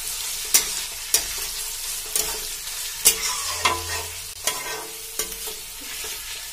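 Onions, carrots and peppers sizzling in hot oil in a kadhai as they are sautéed, stirred with a metal spatula that scrapes and clicks against the pan about once a second.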